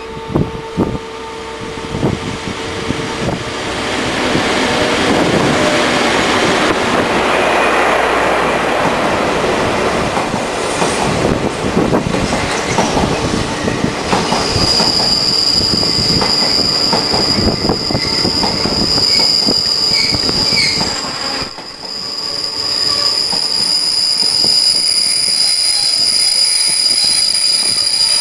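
Twilight Express sleeper train pulling into a station: a rumble of wheels on rails builds as the coaches roll past. About halfway through, a steady high-pitched squeal of wheels and brakes sets in and holds as the train slows.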